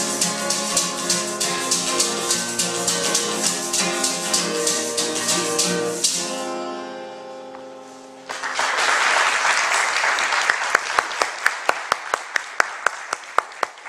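Acoustic guitar playing the last bars of a folk ballad over a steady, sharp percussive beat, the final chord ringing out and fading about six and a half seconds in. Audience applause then breaks out about eight seconds in and tapers off, with evenly spaced sharp claps standing out.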